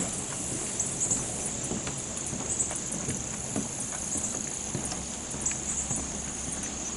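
Footsteps knocking on a wooden boardwalk at a walking pace, over a steady high-pitched hiss of insects with short chirps.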